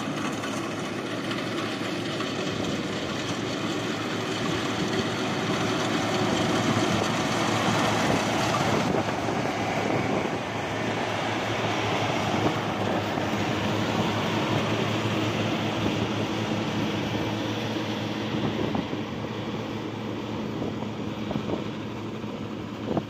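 Rice combine harvester running steadily as it cuts and threshes a paddy field: engine and threshing machinery together.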